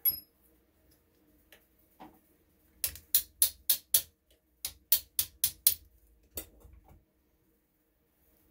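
Small hammer tapping a pin punch to drive a pin through an RWS 54 air rifle's action: two quick runs of sharp taps, about five a second, with a single tap after.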